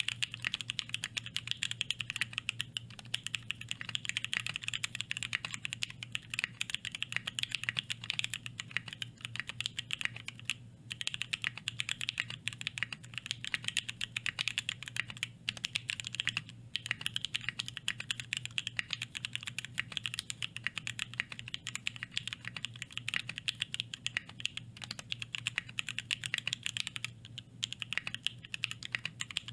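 Fast continuous typing on a custom mechanical keyboard during a typing speed test: a dense run of key clacks with three short pauses.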